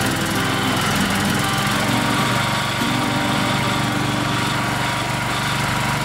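Small gasoline engine of a compact skid-steer loader running steadily, its speed shifting slightly a few times.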